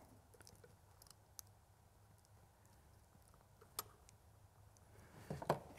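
Faint handling of electrical wires and a butt connector being slid onto the twisted wire ends: a few small clicks, the clearest a little after one second and near four seconds in, over quiet room hum.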